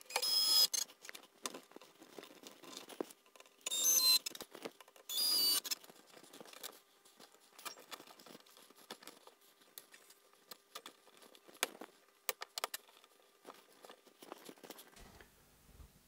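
Cordless drill-driver whirring in three short bursts, near the start and about four and five seconds in, driving screws through plastic nail clips to fix a cable to a wooden frame. Between and after the bursts come small clicks and clinks of screws and clips being handled.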